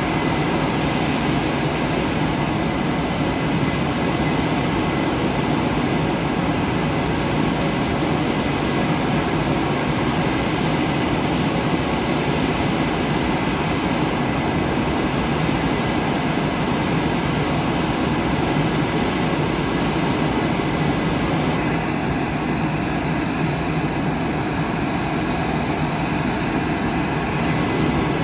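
Boeing F/A-18 Super Hornet jet engines running steadily on the ground: a constant loud roar with a high, even whine over it.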